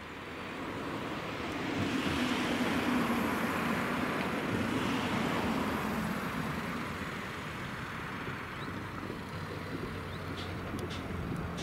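Cars driving over a railway level crossing, with steady tyre and engine noise that builds over the first couple of seconds as they come closer.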